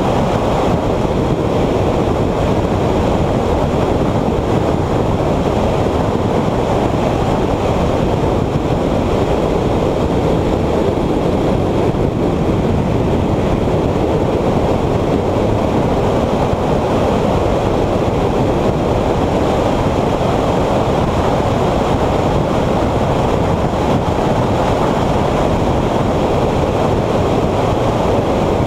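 Steady rushing wind and road noise of a stock 2014 Subaru BRZ driven at track speed, heard through an onboard camera's microphone with wind buffeting it.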